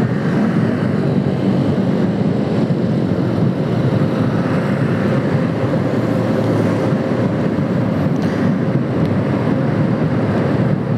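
Motorcycle on the move in traffic: a steady mix of engine and road noise with wind on the microphone.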